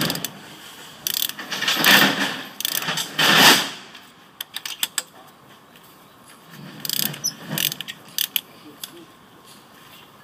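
Socket ratchet clicking in short runs, with sharp metallic clinks between them: a spark plug being turned out or in during a spark plug change.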